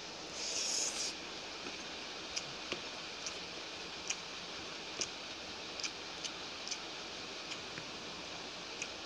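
Eating sounds from a person eating rice and curry by hand: a short burst of chewing about half a second in, then scattered sharp mouth clicks and smacks from chewing, over a steady hiss.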